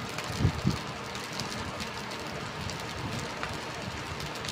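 Fried rice sizzling in a stainless steel pan as it is stirred and tossed with a silicone spatula, with two low knocks about half a second in.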